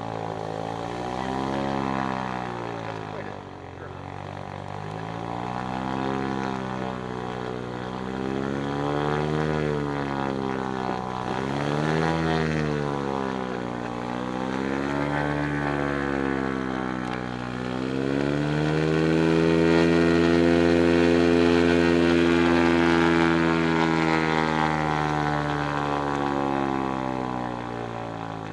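Lake Amphibian's pylon-mounted engine and pusher propeller heard from the cockpit while taxiing. The engine speed rises and falls several times, is held higher for several seconds in the second half, and eases off near the end.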